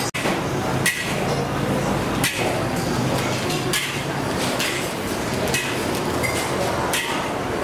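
Metal cooking utensils clanking repeatedly and irregularly, about one or two sharp clanks a second, over a steady din of a busy cooking stall.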